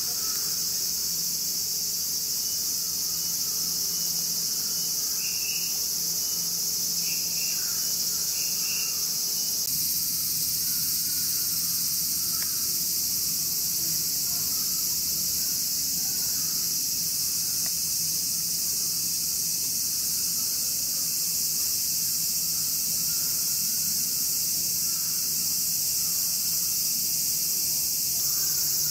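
Summer cicada chorus: a steady, high-pitched shrill drone that doesn't let up, with a few faint short chirps about five to nine seconds in.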